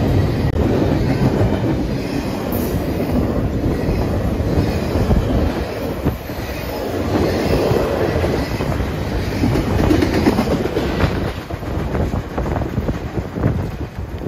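Double-stack intermodal freight train's well cars rolling past close by, steel wheels clattering over the rail joints. The sound falls away near the end as the last car passes.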